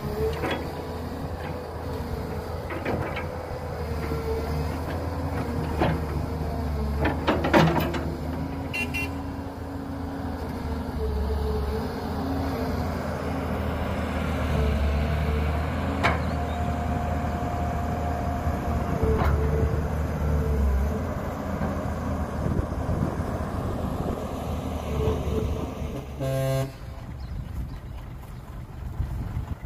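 Heavy diesel engines of an excavator and a dump truck running steadily, with a few sharp knocks and clanks, the loudest about seven seconds in. A short horn toot sounds near the end.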